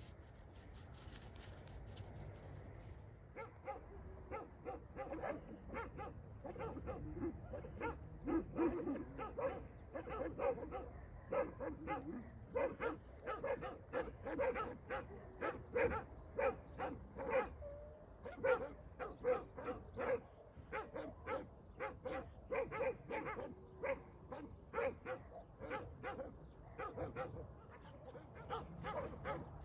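Dogs barking in a long, continuous run, about two barks a second, starting a few seconds in.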